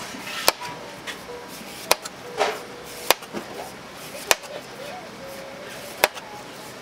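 Knife chopping through fresh fruit onto a cutting board: five sharp chops about a second apart, over faint voices.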